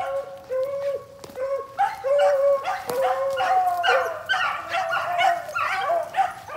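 Beagles baying on a rabbit's trail: repeated high-pitched yelping cries, more than one hound giving voice at once and overlapping at different pitches.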